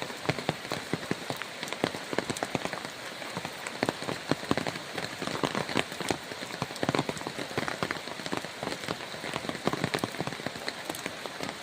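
Steady rain falling, with many drops striking a surface in dense, irregular ticks.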